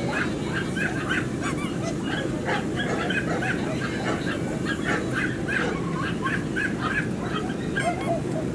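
A handheld squeaky toy squeaked over and over in quick, uneven bursts to hold a show terrier's attention, over a steady low background rumble.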